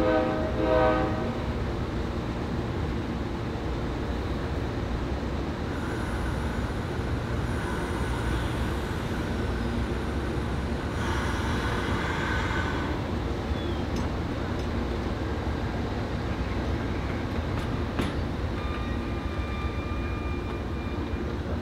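Amtrak Superliner train standing at the platform, giving a steady low rumble. A brief pitched tone sounds at the very start, a hiss of air comes and goes about halfway through, and faint high steady tones sound near the end.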